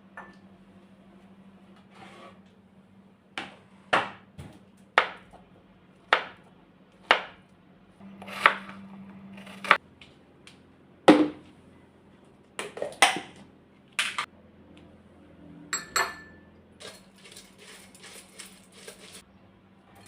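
Kitchen dishes and utensils clinking and knocking in a string of separate sharp strikes, some about a second apart, with a quick run of light taps near the end, over a steady low hum.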